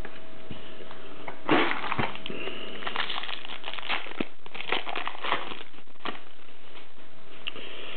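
Wrapper of a trading-card pack crinkling and crackling as it is handled and torn open, in irregular bursts starting about one and a half seconds in. A faint steady hum runs underneath.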